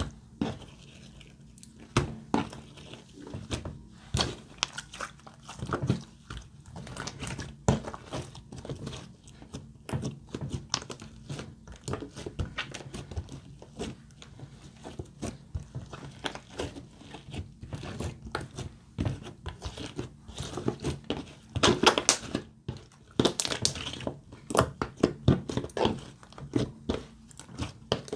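Glossy slime being squished, folded and stretched by hand, with irregular sticky clicks, pops and crackles, busiest a little past the middle.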